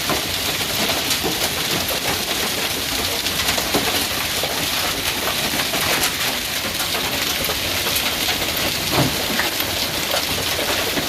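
Heavy hail pelting down, a dense, steady clatter of many stones striking hard surfaces.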